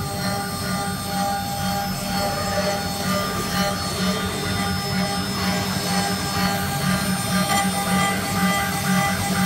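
A 1325 CNC router running: a steady high electric whine from the spindle over a low motor hum.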